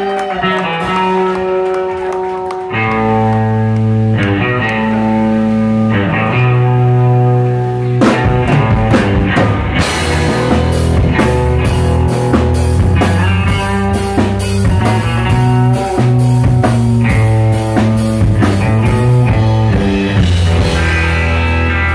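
Live instrumental rock band playing, with electric guitar and bass guitar, and the drum kit joining in about eight seconds in to bring the full band up.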